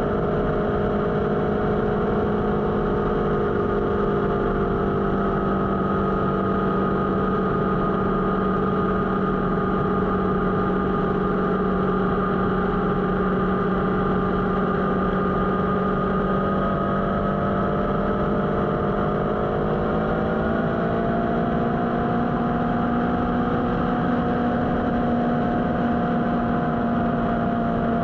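Motorcycle engine running steadily at cruising speed over a constant rush of wind and road noise; the engine note rises slightly about two-thirds of the way through.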